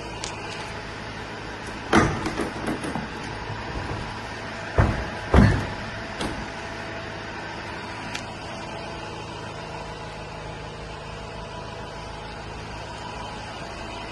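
Van doors being shut: a loud bang about two seconds in, then two more bangs close together about five seconds in, with smaller knocks and rattles after each. A steady diesel idling hum runs underneath.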